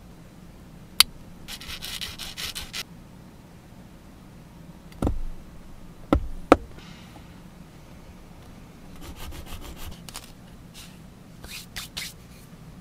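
A small 3D-pen plastic part rubbed back and forth on a metal file for about a second, after a sharp click. Then several heavy knocks and clicks as a hobby knife trims the tiny part on a cutting mat, with fainter scraping and a few light clicks near the end.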